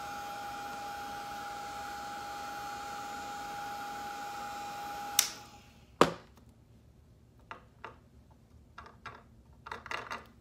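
Small handheld hair dryer running with a steady whir and a high whine, switched off with a click about five seconds in. A sharp knock follows as it is set down, then a few light taps and rubs of fingers on the dried clay piece.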